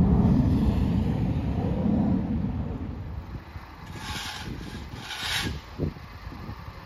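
Outdoor rumble, loud and low, dying away after about three seconds. Later come two brief hissing noises, a second or so apart, and a single thump.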